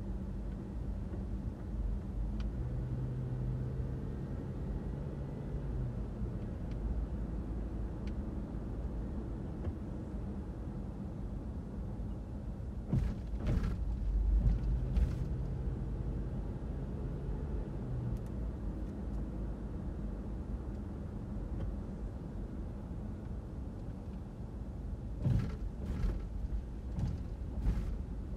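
Car driving: a steady low rumble of engine and road noise with a faint hum. There is a cluster of short knocks or rattles about halfway through and another near the end.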